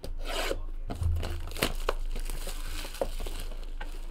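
Crinkling and tearing of packaging as a sealed trading-card box is opened by hand: an irregular run of sharp crackles and rustles, loudest about a second in.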